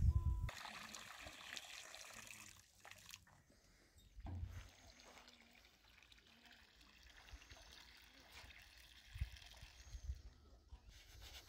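Water trickling and pouring, stronger for the first few seconds and fainter after, with a couple of dull knocks.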